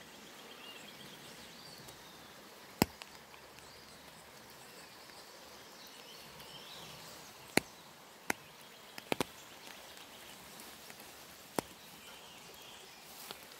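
Steady outdoor ambience of a wet woodland with faint high chirps, broken by several sharp clicks at irregular intervals. The loudest clicks come about three seconds in and about halfway through, with a quick cluster of three just after.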